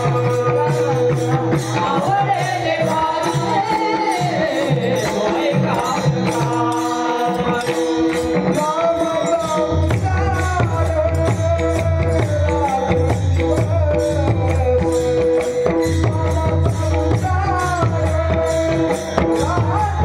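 Marathi devotional abhang sung by a single melodic voice, with jingling hand percussion keeping a steady beat. About halfway through, a deep bass or drone layer comes in under the song.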